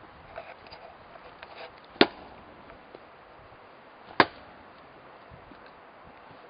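Axe splitting firewood: two sharp strikes on the wood about two seconds apart, with a few faint knocks before the first.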